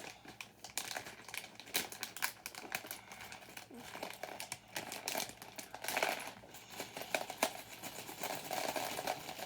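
A plastic parts bag crinkling while small plastic building bricks click and rattle against each other as pieces are picked out.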